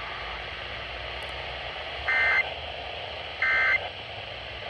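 Emergency Alert System SAME digital data bursts received over NOAA Weather Radio: three short bursts about 1.3 s apart, the third starting near the end, over steady radio hiss. Their shortness fits the end-of-message code that closes the required monthly test.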